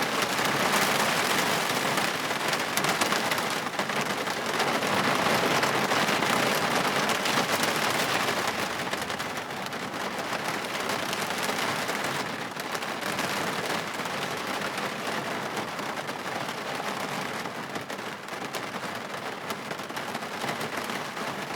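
Heavy rain pouring onto a car windshield, a dense steady patter of drops on the glass that eases somewhat in the second half.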